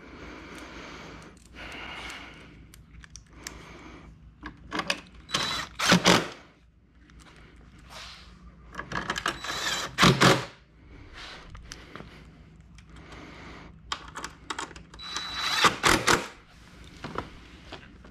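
Cordless DeWalt impact driver run in three short bursts, about five, nine and fifteen seconds in, driving screws into plastic fairing and headlight panels. Plastic parts and the screws are handled in between.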